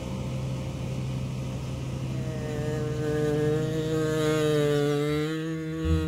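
Combine harvester engine running steadily, with a higher droning note that comes in about two seconds in and holds until near the end.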